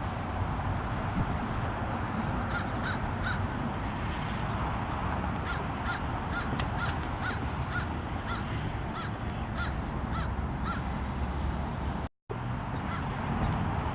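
A bird giving a series of short, harsh calls, a few a second, in a brief run about two and a half seconds in and a longer run from about five to eleven seconds, over a steady low background rumble. The sound cuts out for a moment near the end.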